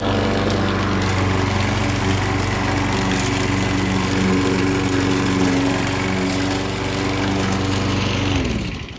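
Walk-behind lawn mower's single-cylinder Briggs & Stratton Classic engine running steadily, then shut off about eight and a half seconds in, its pitch falling as it winds down.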